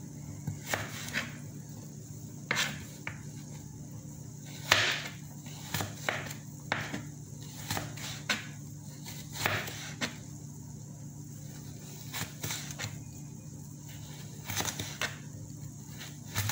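Chef's knife slicing through raw carrot and knocking on a plastic cutting board in irregular strokes, over a steady low hum.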